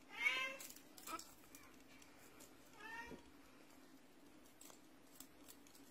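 Russian Blue kittens mewing: a loud mew at the start, a short one about a second in and another about three seconds in, with a few faint clicks between.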